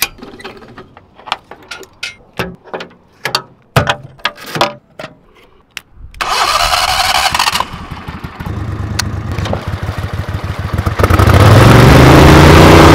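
Boat trailer hand winch clicking irregularly as it is worked, then an air-cooled mud motor engine is started about six seconds in. It runs at idle with a rapid beat, then revs up with rising pitch and runs loud near the end as the boat pulls away.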